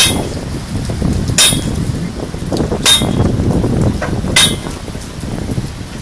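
Four sharp metallic clinks, evenly spaced about a second and a half apart, each with a brief ring, over a steady low rumble of wind on the microphone.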